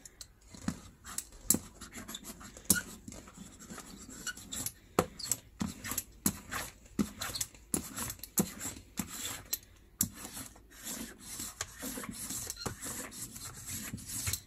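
An inked brayer rolled back and forth over a silicone baking tray, spreading ink: a rubbing, rolling noise broken by many irregular clicks.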